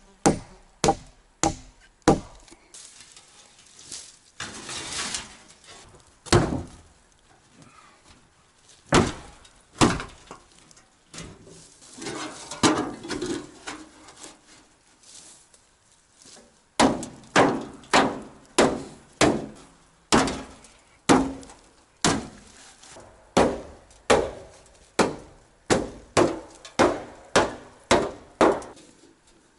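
Steel axe chopping into wood in quick strokes, about two a second. In the middle stretch the blows thin out to a few scattered knocks with some scuffing noise, then steady chopping resumes for roughly the last dozen seconds.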